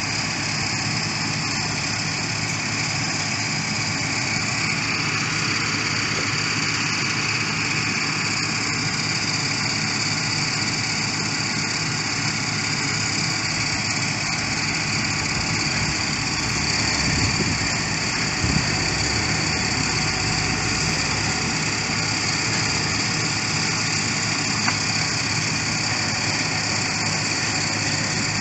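A construction machine's engine running steadily, with a slight swell about two-thirds of the way through.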